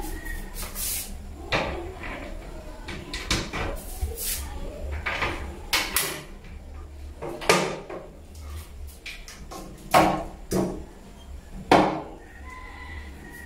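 Plastic toilet seat and lid being handled on a ceramic toilet bowl: irregular knocks and clacks, the loudest two about ten and twelve seconds in.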